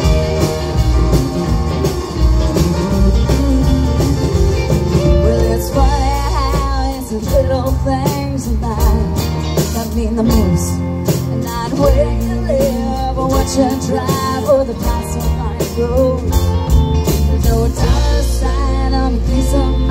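Live country-rock band playing through a PA: guitars, bass, keyboard and drum kit, with singing at times.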